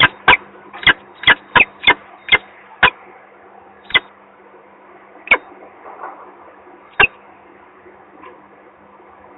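Peregrine falcon giving short, sharp chip calls, about three a second at first, then slowing to three single calls spaced a second or more apart, over a steady low hum from the nest camera.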